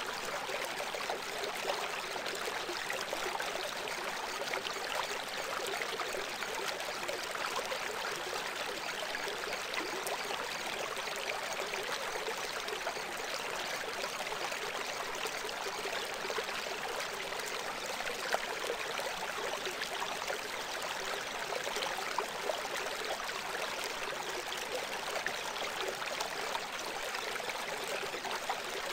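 Steady sound of running water like a babbling stream, with little bass, unchanging throughout. It is the audible masking layer of a subliminal track, laid over messages meant not to be consciously heard.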